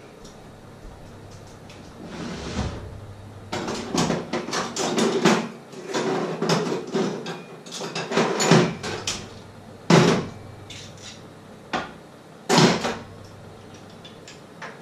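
Kitchen clatter of dishes and cupboards being handled: a quick run of clinks and knocks, then two louder single knocks near the end.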